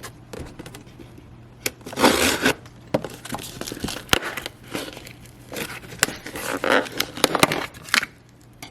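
Cardboard shipping box being cut and opened with scissors: irregular snips, scrapes, tape tearing and cardboard crinkling, with a sharp click just after four seconds. A steady low hum runs underneath.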